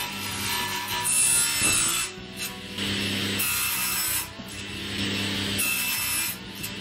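Table saw running, its blade cutting an aluminium bar held in a wooden jig. The cutting noise comes in three stretches with short dips between them, over a steady motor hum.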